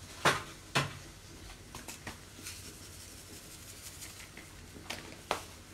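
Salt and pepper being shaken over fried croutons in a plastic tub lined with kitchen paper: two sharp clicks in the first second, then a few fainter ticks and light pattering.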